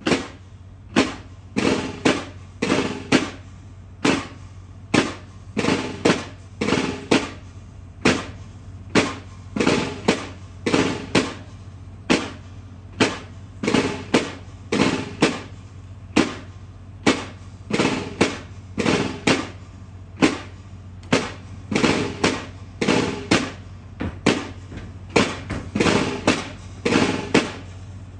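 Military snare and bass drums beating a slow march rhythm of sharp strokes, roughly one or two a second, during the salute to the flag.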